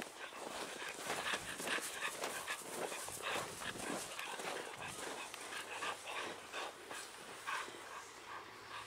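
Snow crunching in a quick, irregular run of steps as chow chow puppies and a person tramp through it.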